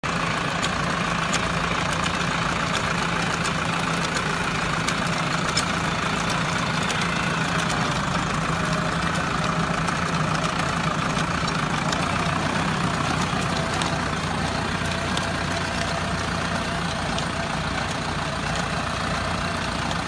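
100 hp four-wheel-drive tractor's diesel engine running steadily under load while it pulls a rotary tiller through dry field stubble, with the steady hum and churn of the working tractor.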